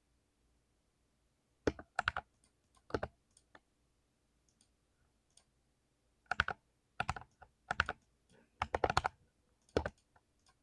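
Mechanical keyboard with Cherry MX Speed Silver linear switches being typed on in short, irregular bursts of keystrokes with pauses between them, the densest run near the end.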